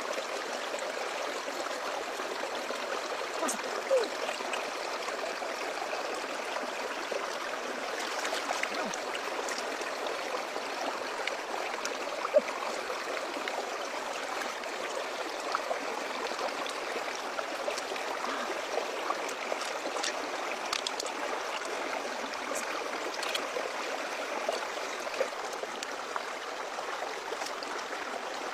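Shallow stream running over rocks: a steady rushing burble of water, with a couple of short sharp clicks, one about four seconds in and one about twelve seconds in.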